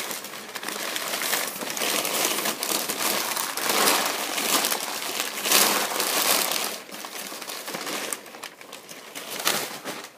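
Packing paper being crumpled and rummaged through by hand, a dense crinkling. It is loud for about the first seven seconds, then softer and more scattered.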